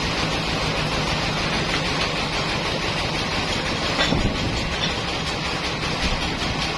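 Sawmill machinery running with a steady, dense mechanical noise, and a short louder noise about four seconds in.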